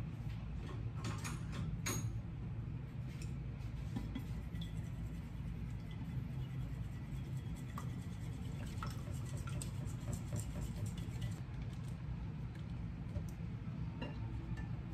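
Chopsticks beating a raw egg in a ceramic bowl: a fast run of light clicks against the bowl, stopping about three-quarters of the way through, with a few single knocks of chopsticks on the bowl before and after, over a steady low hum.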